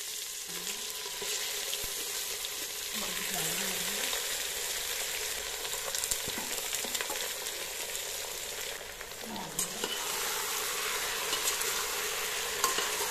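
Marinated goat meat sizzling as it fries in hot mustard oil in a pressure cooker: a steady frying hiss, with a few clicks of a spatula stirring against the pot.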